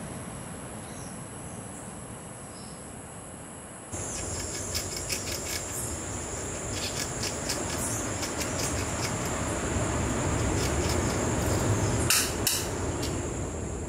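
Rainforest insect chorus, a steady high-pitched buzz. About four seconds in it cuts to a louder chorus with rapid faint ticking, and two sharp clicks come near the end.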